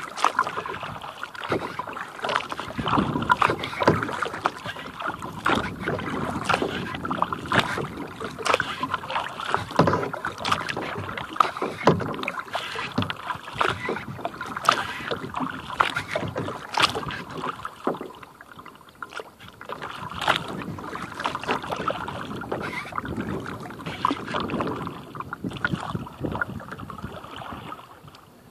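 Kayak paddling: the paddle blades splash in and out of the water in an uneven rhythm, every second or two, with water washing along the plastic hull.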